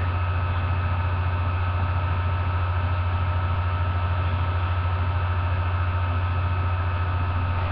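Steady low electrical mains hum with a hiss, unchanging throughout, with a few thin steady whines higher up.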